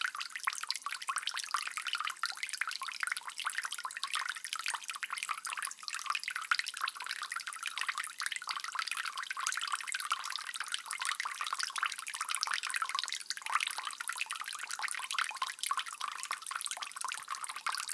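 Water dripping, a dense run of many quick drops that keeps on evenly, the drops sitting in the upper range over a watery hiss.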